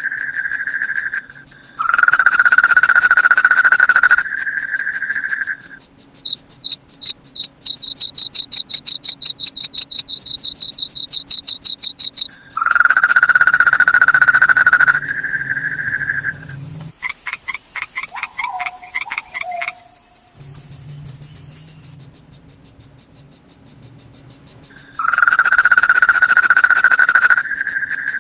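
Night insect chorus: crickets trilling in a steady high tone throughout, with a lower buzzing trill coming in bursts of a few seconds four times, and a stretch of rapid ticking pulses. Around the middle the chorus drops to a quieter passage of fast pulsed calls before the steady trilling returns.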